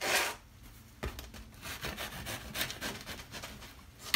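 Serrated bread knife sawing through a crusty Italian roll on a wooden cutting board: a run of short rasping strokes, with a knock on the board about a second in.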